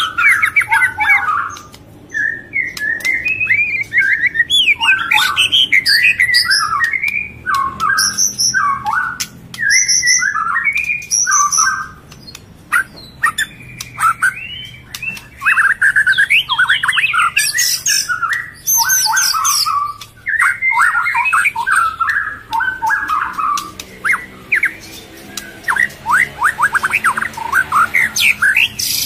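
Murai songbirds calling: a busy, loud run of harsh squawks and quick chirps in bouts of a few seconds, with short pauses between them.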